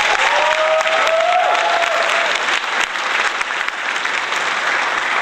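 Audience applauding, starting with a few whoops.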